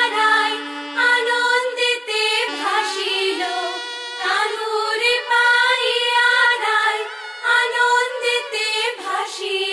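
Bengali devotional song with a woman singing a long, wavering melodic line over a steady held drone note, which fades out about two seconds in.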